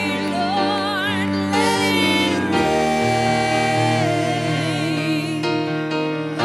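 Live gospel worship music from a church band: a singer holds long notes with vibrato over sustained keyboard chords and bass.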